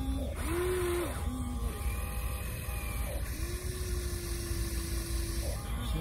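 Electric motors of a 1/14-scale Huina RC excavator whining as the arm and bucket move, the pitch jumping up and down several times as one motion stops and the next starts, over a steady low rumble.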